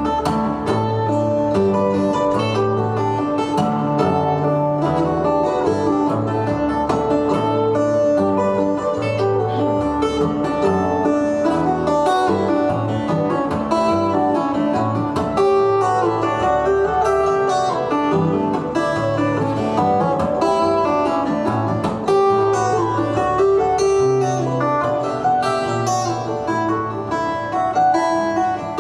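Instrumental acoustic guitar music: quick, ringing plucked notes over a line of repeated bass notes.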